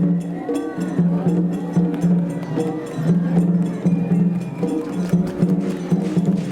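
Parade music: sustained low tones in held phrases with short breaks, over quick, sharp clicking percussion, with faint voices of the crowd.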